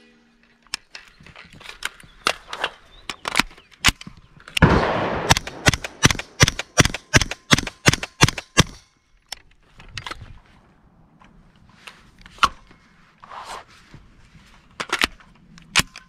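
Suppressed B&T APC9 9mm submachine gun firing single shots. A run of shots comes at about three a second from about five seconds in until near nine seconds, with sparser, fainter shots before and after it.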